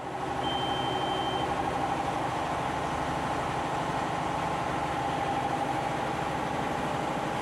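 Yanmar 6AYM-WST six-cylinder marine diesel engine running steadily.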